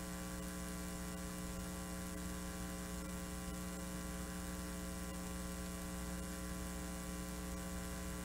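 Steady electrical mains hum with a buzz of many overtones, unchanging throughout.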